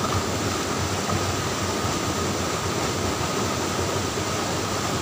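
Steady rush of a shallow stream running over rocks, an even noise with no breaks.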